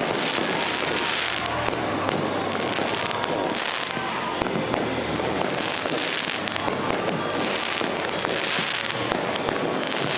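An aerial fireworks display going off continuously: many shells bursting and popping in quick succession, with waves of dense crackle swelling and fading every couple of seconds.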